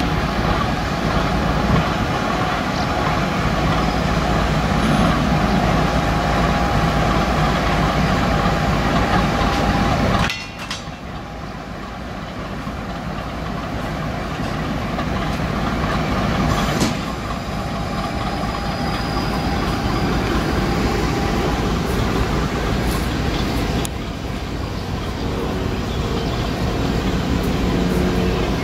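Class V 65 diesel locomotive running loudly as it hauls a train of coaches slowly past. The sound drops abruptly about ten seconds in, builds back up, and dips again near the end.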